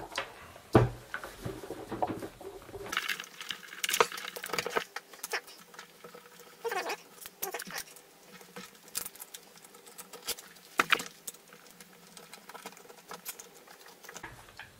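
Irregular clicks, taps and knocks of an electric drill being handled and taken apart by hand: the casing, a screwdriver and small parts knocking against each other and the table.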